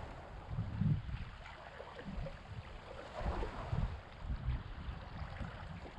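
Wind buffeting the microphone in irregular low gusts over the faint wash of small waves.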